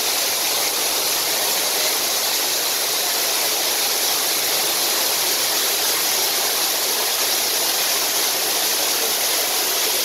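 Water pouring over the ledge of an artificial waterfall and splashing into the pool below: a steady, even rush of falling water.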